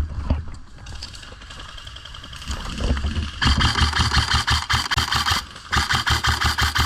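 Airsoft gun firing two long full-auto bursts, a rapid mechanical rattle of repeated shots. The first starts about three seconds in and the second follows after a brief break, after which the gun is reloaded.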